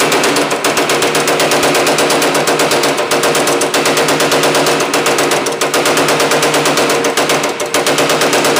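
Power hammer pounding an aluminum panel in a rapid, steady stream of blows, stretching and raising the metal.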